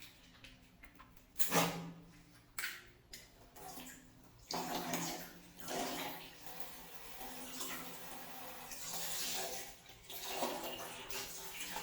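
Water balloons bursting: a sharp pop about a second and a half in, two smaller ones soon after, then water splashing and pouring out unevenly for the rest of the time.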